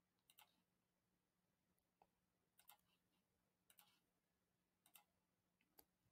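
Near silence with faint computer mouse clicks, about six of them roughly a second apart, several as quick doubles of press and release.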